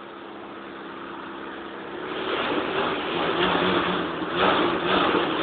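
1974 Mini 1000's 998 cc A-series four-cylinder engine running at a steady idle, then revved about two seconds in, the revs surging up and down several times.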